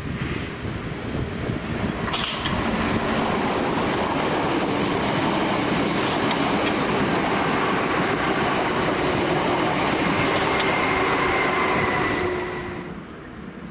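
Southeastern Class 465 Networker electric multiple unit running past close by: a steady rush of wheels on rail with a few sharp clicks. It drops away about thirteen seconds in as the train clears.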